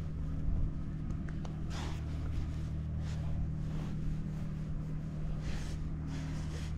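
An engine running steadily at a constant speed, with a few brief swishes of noise over it.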